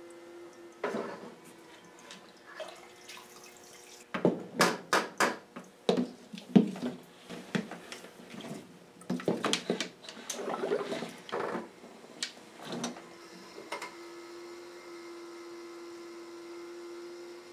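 Small battery-powered parts-washer pump humming steadily. It stops about a second in and starts again near the end, a weak pump that the owner blames on worn-out batteries for not lifting the fluid. In between, loud irregular scrubbing, clattering and splashing as the lawn mower engine parts are worked over in the cleaning fluid.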